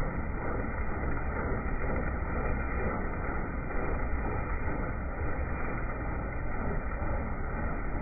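Combine harvester running steadily in a soybean field: a continuous engine and machine noise, strongest in the low end.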